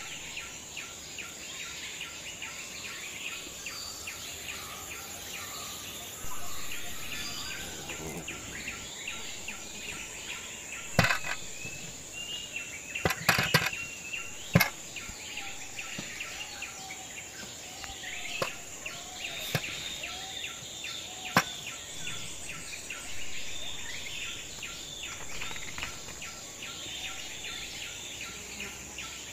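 Steady insect buzz and bird chirping, broken by sharp knocks of a steel cleaver chopping peeled potatoes on a wooden chopping board: a quick cluster of chops near the middle, with a few single knocks before and after.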